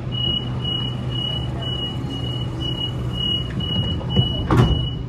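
Train door-closing warning: a string of about ten short, high beeps, roughly two a second, over the steady low hum of the stationary train. Near the end the sliding doors shut with one sharp thud.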